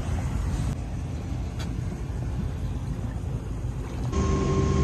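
Low, noisy rumble of boat engines. About four seconds in it changes suddenly to a boat engine running underway: a deep drone with a steady whine over it.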